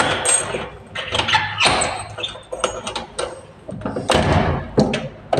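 Handling noise: sweatshirt fabric rubbing and brushing against a phone's microphone as the phone is carried against the body, in irregular scuffs and knocks.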